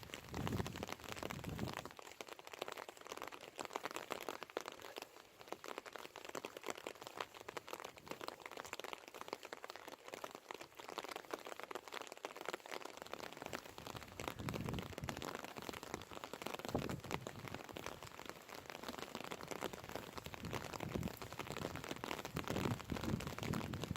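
Rain falling close to the microphone: a dense, steady crackle of drops, with low thuds now and then in the first couple of seconds and again through the second half.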